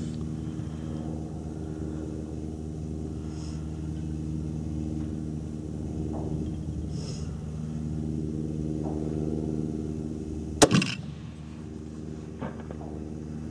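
A steady engine hum runs throughout, then a single sharp rifle shot from a Swiss K-31 firing GP11 ammunition about ten and a half seconds in. A fainter click follows a couple of seconds later.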